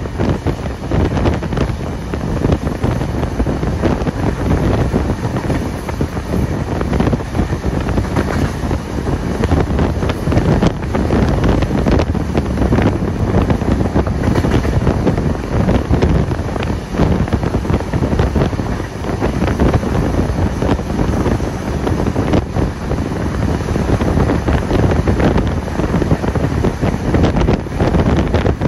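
Passenger train hauled by steam locomotive 3801 running at speed, heard from on board: a steady rumble of the moving train with wind buffeting the microphone.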